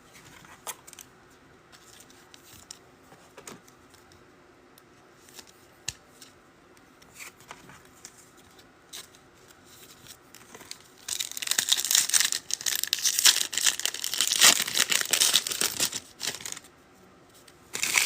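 Faint clicks of cards being handled, then about 11 seconds in a loud crackling as a foil trading-card pack wrapper is torn open and crinkled for several seconds.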